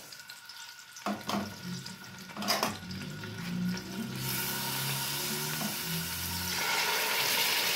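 Raw chicken pieces going into hot oil in a pot: a few light knocks of a metal fork against the pot, then the oil starts sizzling about four seconds in, growing louder near the end.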